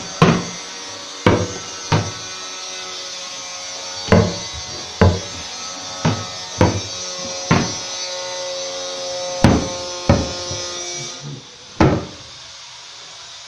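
Hammer blows on wood, about eleven at uneven intervals roughly a second apart, each ringing briefly. A steady hiss behind them stops near the end.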